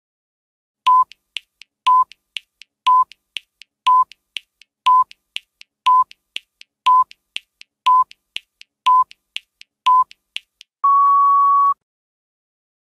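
Countdown timer sound effect: ten short electronic beeps, one a second, with faint ticks between them, then one longer, slightly higher beep as the count reaches zero.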